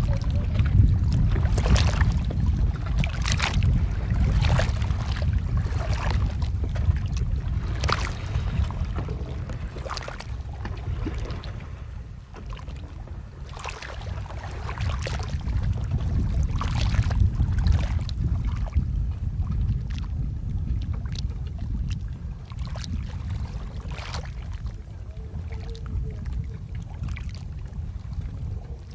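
Low wind rumble on the microphone over open sea, with water splashing and slapping against a boat's hull about once a second, the splashes thinning out in the second half.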